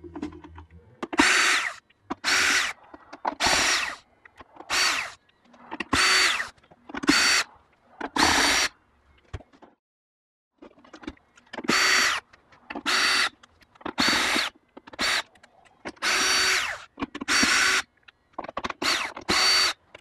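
Cordless Makita drill-driver backing out Phillips screws from an electric unicycle's plastic shell panels: about a dozen short whirring bursts, one or two per screw, with a pause of a couple of seconds midway.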